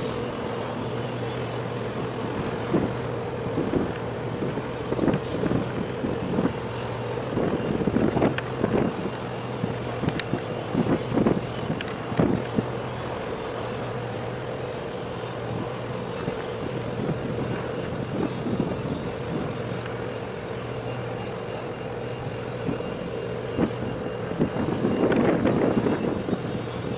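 A steady engine hum with a low and a middle tone, under a rushing noise and scattered irregular bumps and knocks, busiest about a third of the way in and near the end.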